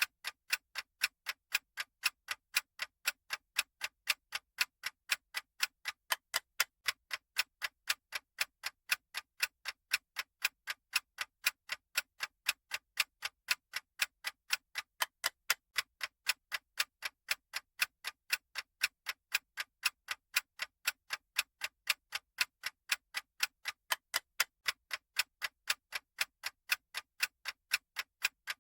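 Clock-style ticking sound effect of a countdown timer: sharp, evenly spaced ticks at a steady rate of a little over two a second.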